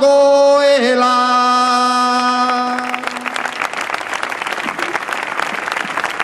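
A man sings the last word of a Basque song line, "dagoela", amplified over loudspeakers, and holds one long steady note that fades out about three seconds in. A large crowd then applauds.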